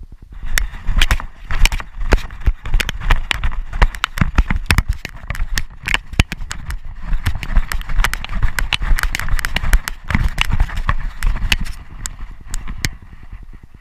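A Doberman pinscher running with a camera strapped to her body: a fast, uneven run of loud thuds and knocks as her paws strike the ground and the camera jolts against her, starting about half a second in and easing off near the end.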